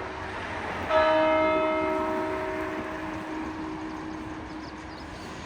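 A church bell struck once about a second in, its tone ringing on and slowly dying away over the next couple of seconds.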